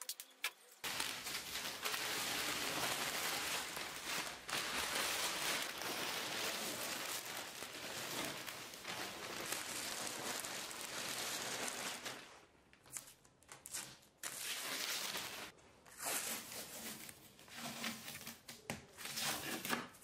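Masking paper and tape being pulled off a freshly painted car panel: crinkling and tearing of paper, steady for about ten seconds, then in shorter separate bursts as the last strips of tape are peeled away.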